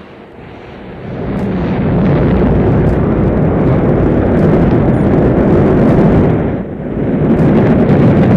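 Rocket engines at launch: a loud, deep, rumbling roar that swells about a second in and keeps up, with a brief dip near the end before it returns.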